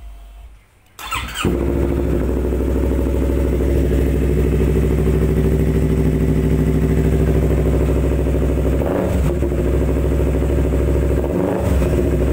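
Yamaha R25 parallel-twin engine with an aftermarket exhaust, electric-started about a second in. It catches at once and idles steadily, with two short throttle blips in the last few seconds.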